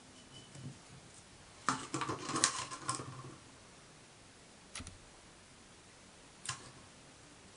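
Small items being handled on a workbench: a quick clatter of clicks and knocks lasting about a second, starting about two seconds in, then two single sharp clicks a couple of seconds apart.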